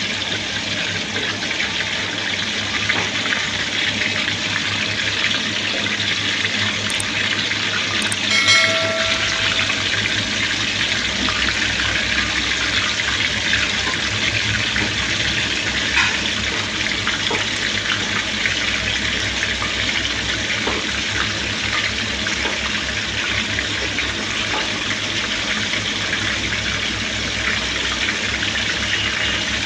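Chicken potli pouches deep-frying in hot oil, sizzling with a steady hiss. A brief ringing tone sounds about eight and a half seconds in.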